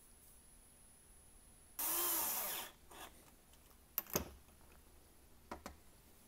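A short loud burst of hissing noise, just under a second long, about two seconds in, with a sweeping whoosh to it. A few sharp light clicks follow, as a small brass tag is handled and set into a holding jig on a machine bed.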